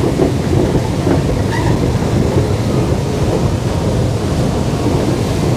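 A long metro-station escalator running, riding upward: a steady low rumble with no breaks.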